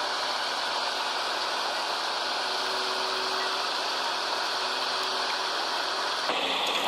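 Caterpillar hydraulic excavator's diesel engine running steadily under load as it lifts a heavy tracked machine on slings. A louder, rougher noise comes in near the end.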